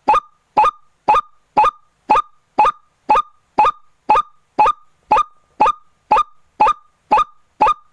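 White-breasted waterhen (ruak-ruak) call repeated rapidly and evenly, about two short nasal croaks a second. It is a clean, unbroken lure recording with no background noise.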